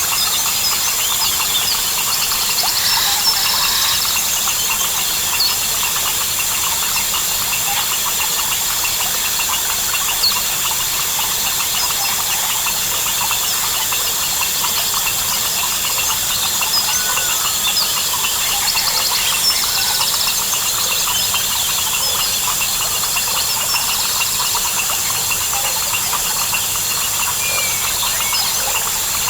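Dense jungle chorus: crickets and other insects keep up a steady high-pitched trilling, with many short chirps and calls of frogs and birds scattered over it.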